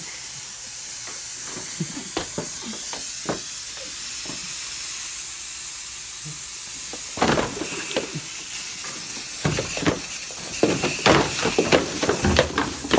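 Aerosol can of party string spraying with a steady hiss. From about seven seconds in, loud irregular knocks, scuffling and cardboard clatter take over.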